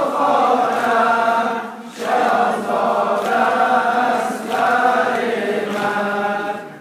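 Male congregation chanting the refrain of a Persian Muharram noha (lament) in unison, many voices together. It comes in long sung phrases, with short breaks about two seconds and four and a half seconds in.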